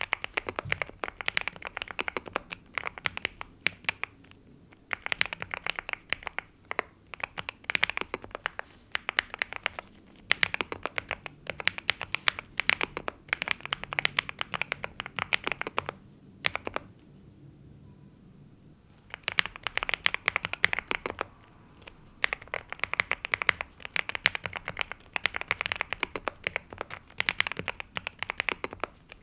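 Typing on a NuPhy Gem80 mechanical keyboard with linear Mint switches and double-shot PBT mSA keycaps: rapid runs of keystroke clacks, broken by a few short pauses, the longest a little past halfway.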